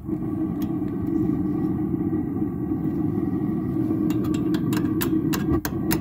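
Propane burner of a Dometic RV water heater running with a steady low rumble, broken by sharp pops: a few at first, then about four a second from about four seconds in. The flame is sputtering, the sign of a wrong air-fuel mixture with too much air at the burner's air shutter.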